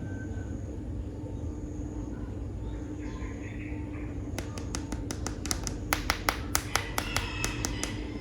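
Steady low hum, then from about halfway a quick run of sharp clicking taps, several a second, like hard plastic toy figures being tapped and handled.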